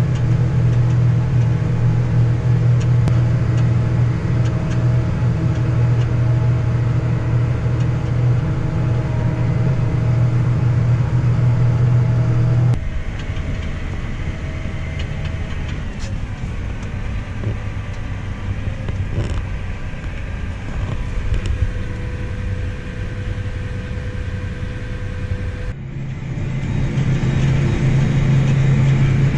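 Farm machine engine running steadily with a strong low drone. About 13 seconds in the sound cuts abruptly to a quieter run with higher steady hums, and near the end it cuts back to the loud low drone.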